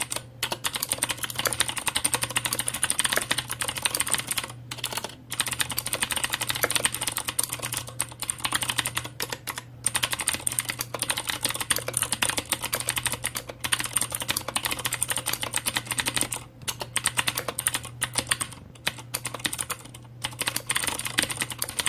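Fast, continuous typing on a mechanical keyboard with clicky blue switches (OUTEMU Blue or Cherry MX Blue), a dense stream of sharp key clicks broken by a few short pauses. A steady low hum runs underneath.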